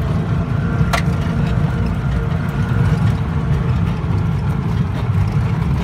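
Auto-rickshaw engine running steadily as the three-wheeler drives along a gravel road, heard from inside the cab, with a sharp knock about a second in.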